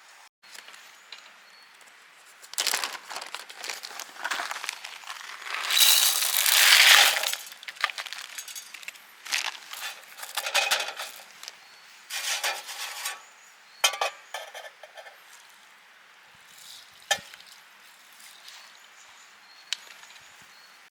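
Camp cooking gear and packaging being handled: irregular rustling and crinkling, with a few sharp clinks and clicks.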